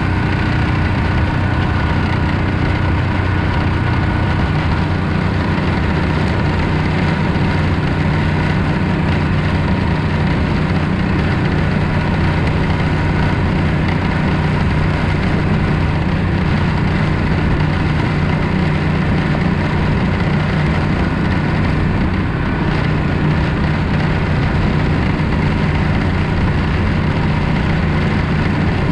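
Predator 420cc 13 hp single-cylinder engine driving a longtail mud motor, running steadily at an even throttle.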